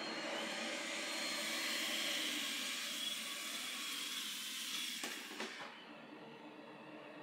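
iRobot Roomba Max 705 Combo robot vacuum running at high suction with a strong hiss, then, after a couple of clicks about five seconds in, its suction motor drops sharply to a lower, quieter level. This shift in suction power is the robot's carpet boost switching.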